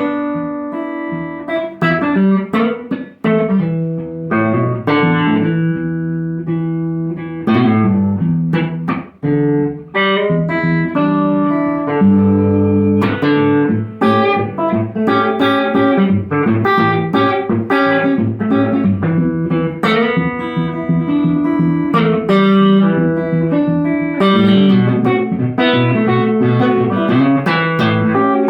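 Electric guitar played through an EL84 valve amplifier, picked single-note blues lines and chords with a slapback echo.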